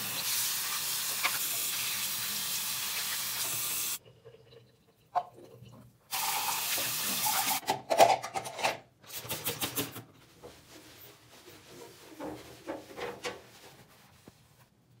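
Bathroom basin tap running steadily into a foamy sink, cutting off abruptly about four seconds in. Then come sharp clicks and knocks of small plastic items being handled, and faint rubbing and clicking near the end.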